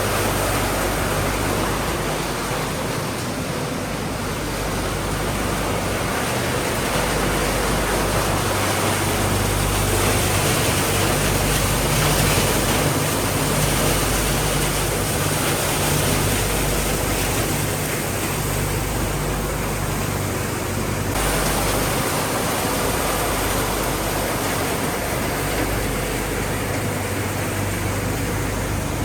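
Steady noise of a refrigerator recycling line running, its shredders, crushers and conveyors making a dense, even din over a low hum. The sound shifts abruptly about two-thirds of the way through.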